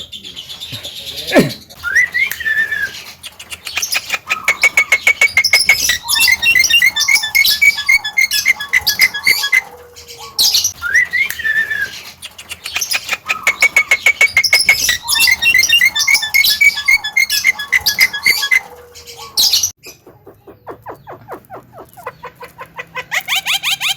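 Bird song: a rapid, dense chattering and trilling sequence with short upward-sliding notes. The same sequence plays through twice in identical form, as from a looped recording. A different fast, pulsing call starts near the end.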